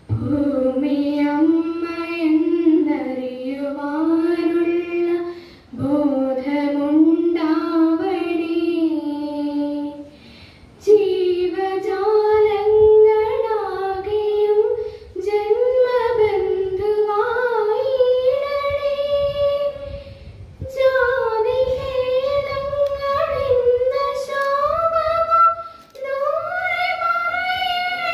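A single female voice singing a melody in phrases of about five seconds with short breaks between them; the later phrases are pitched higher than the first ones.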